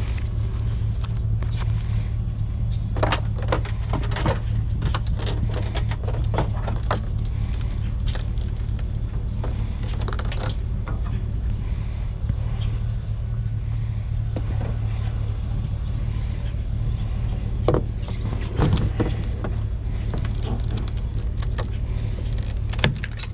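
Vehicle running with a steady low drone, with light clinks and rattles now and then, clustered early and near the end.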